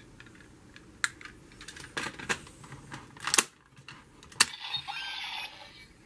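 Plastic clicks and snaps of a toy Sengoku Driver belt and lockseed being handled as the lockseed is fitted into the belt: a handful of separate sharp clicks, the loudest about three and a half and four and a half seconds in.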